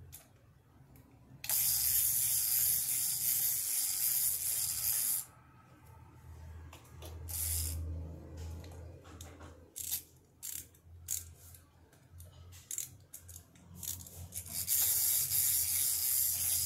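Small plastic toy figures and hands scraping along a tiled floor in two long hissing stretches, with scattered light taps and clicks of plastic on tile in between.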